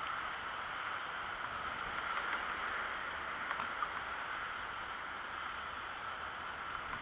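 Steady rushing noise of a bicycle rolling along a paved path, picked up by a camera mounted on the bike: tyre hum mixed with wind on the microphone.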